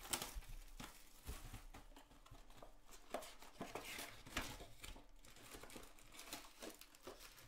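Cardboard 2020 Panini Select NFL trading-card box handled and opened by hand, its packs slid out: faint scattered rustling, scraping and crinkling of cardboard and pack wrappers.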